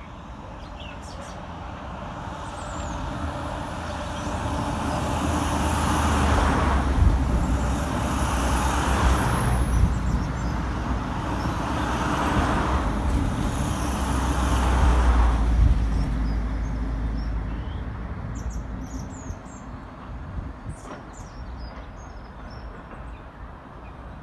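Class 60 diesel-electric locomotive's eight-cylinder Mirrlees engine running as the locomotive moves off slowly. A deep rumble swells over several seconds, stays loud for about ten seconds, then dies back.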